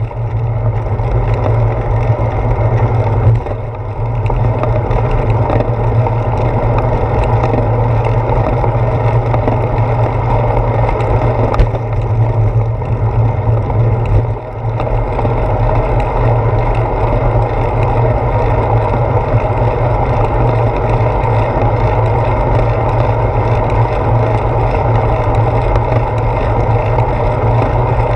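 Steady low rumble of wind and road vibration picked up by a handlebar-mounted GoPro Hero 4 as the bicycle rides along. It dips briefly twice, about three and a half and fourteen and a half seconds in.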